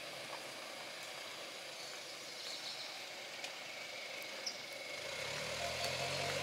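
Steady outdoor hiss with the low engine hum of a Jeep Wrangler JL Rubicon creeping along a muddy forest track. The hum becomes more distinct about five seconds in.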